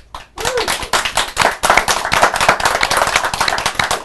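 A small audience clapping with dense, irregular claps that start about half a second in and keep going as the guests walk on.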